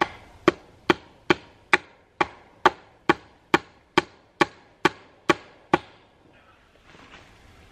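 Hammer blows against a wooden fence post: a steady run of about fourteen sharp strikes, roughly two a second, that stops about six seconds in.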